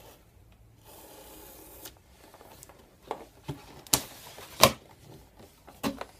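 Handling and opening a computer's packaging box: a soft rubbing or sliding noise about a second in, then a series of short sharp knocks and clicks, the loudest a little past the middle.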